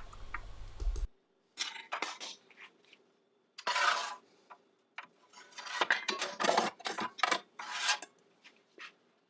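Metal clinks and scrapes of a miter saw's blade bolt and parts being unscrewed and handled, in a string of short separate bursts with brief quiet gaps between them.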